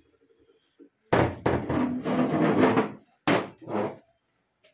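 Loud banging on wood: a hard hit about a second in starts some two seconds of rapid pounding, then two separate sharp knocks.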